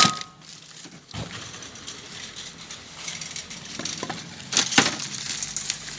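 Knocks, clicks and crackling of a street trash bin and its rubbish being handled, with a sharp click at the start, a thump about a second in and two sharp clicks near the end.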